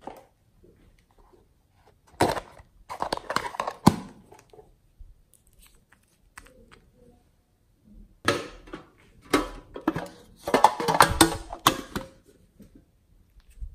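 Small plastic paint bottles handled close to the microphone: two spells of clicking and crinkling, one about two seconds in and another about eight seconds in.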